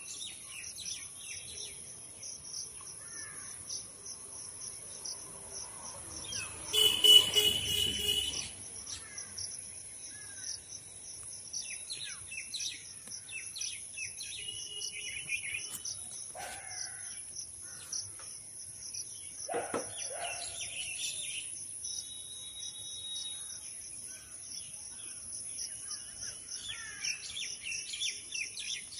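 Garden ambience: birds chirping on and off over a steady, high, pulsing insect drone. About seven seconds in, a louder harsh sound lasts roughly two seconds.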